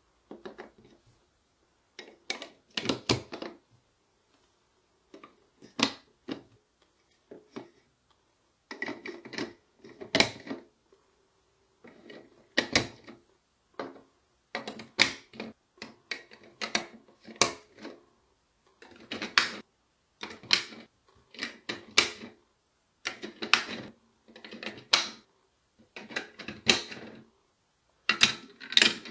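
Hard plastic toy parts clicking and clattering in short bursts, a cluster of sharp taps every second or two with quiet gaps between.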